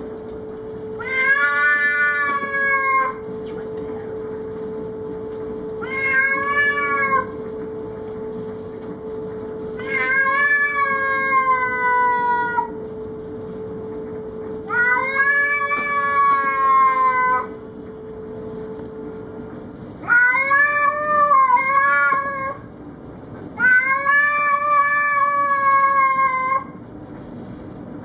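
A cat giving long, drawn-out territorial yowls at another cat, six in a row about four seconds apart, some sagging in pitch at the end: a threat call warning off an intruding cat.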